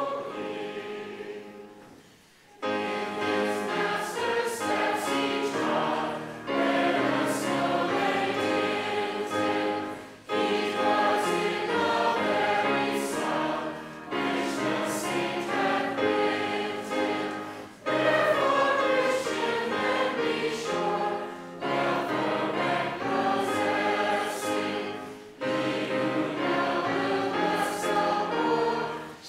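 Many voices singing together in unison-style phrases of about four seconds each, with short breaks for breath between them.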